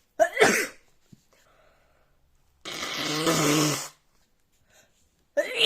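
A person sneezing twice, two sharp bursts about five seconds apart. Between them comes a longer noisy breath or nose sound, lasting about a second and a half.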